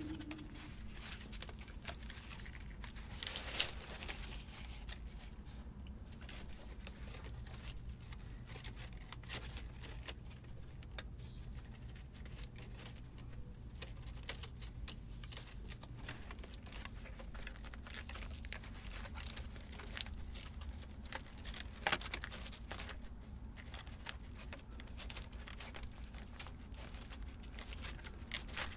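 Dry cattail leaf strips crackling and rustling as they are woven by hand into a mat: a steady stream of small, irregular crackles, with a sharper crackle about three and a half seconds in and another a little past twenty seconds.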